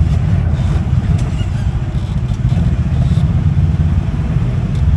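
Kawasaki KRX side-by-side's engine running steadily with a low, pulsing drone, heard from on board, with a few faint rattles.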